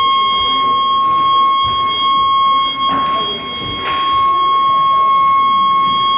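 Steady high-pitched electronic tone of about 1 kHz, played from a signal generator through a loudspeaker to set up standing sound waves in the room, so it is loud at some spots and quiet at others. The level dips briefly about three seconds in.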